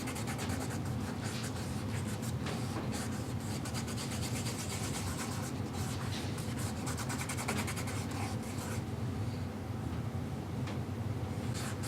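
Wood stain being rubbed onto a small wooden piece with an applicator: a steady, scratchy rubbing made of many quick short strokes.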